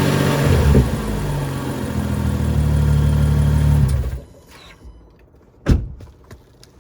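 BMW N55 3.0-litre turbocharged inline-six idling on a cold start, the idle the owner records for an abnormal cold-start noise; the engine is switched off about four seconds in and stops abruptly. A single sharp knock follows about a second and a half later.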